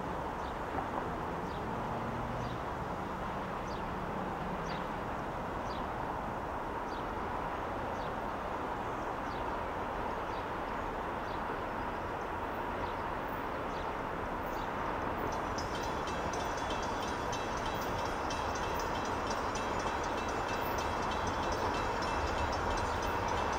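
Freight train approaching from a distance: a steady rumble that grows slowly louder, with a faint high ringing joining in about two-thirds of the way through.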